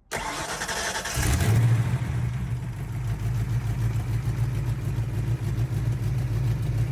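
A Fox-body Mustang's engine is cranked by a newly fitted SVE mini starter: a short, high-pitched spell of cranking, then the engine catches about a second in, flares up and settles into a steady idle. The starter turns it over at once, with no solenoid clicking; it was fitted to cure a heat-soaked starter that only clicked.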